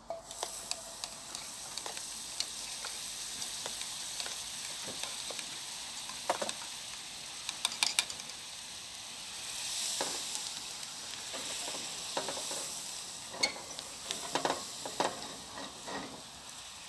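Butter sizzling as it melts in a hot frying pan over a charcoal fire. The sizzle starts as the butter goes in and swells about ten seconds in. Occasional sharp clicks and scrapes sound over it.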